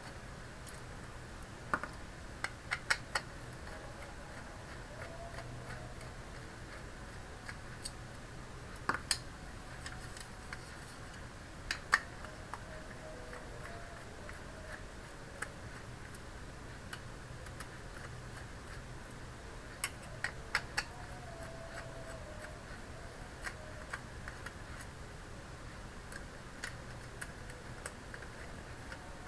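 Scattered, irregular sharp clicks and taps of hands handling and removing the hard disk from an all-in-one PC, with a few louder clicks in small clusters, over a faint steady low hum.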